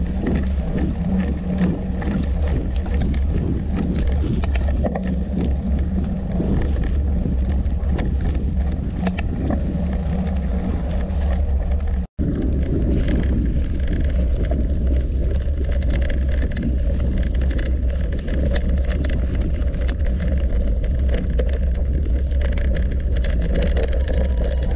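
Mountain bike riding noise picked up by a handlebar-mounted action camera: a constant low rumble of wind and road vibration, with the hiss of tyres on a wet road and then a gravel dirt track, and frequent small clicks and rattles as the bike goes over bumps. The sound cuts out for an instant about halfway through.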